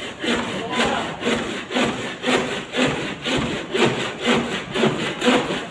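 Handsaw cutting wood in steady back-and-forth strokes, about two strokes a second.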